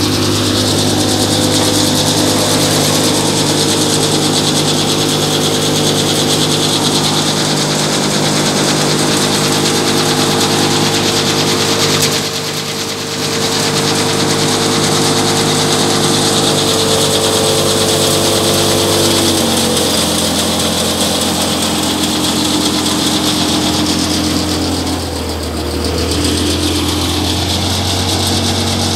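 Tractor engine running steadily under load, driving a belt-driven grain thresher, with the thresher's drum and sieves making a loud even rushing hiss over the engine hum. The engine note drops a step about two-thirds of the way in, and the sound dips briefly twice.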